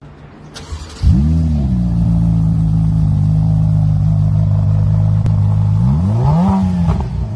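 Ferrari F8 Spider's twin-turbo V8 firing up about a second in, flaring in revs and then settling to a steady idle. Near the end it gives a quick rev that rises and drops back.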